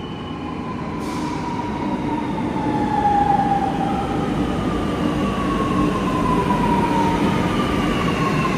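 Lucknow Metro train pulling into the station. Several whining tones from its motors slide down in pitch as it brakes, over a steady rumble of wheels on the track that grows louder over the first few seconds and then holds.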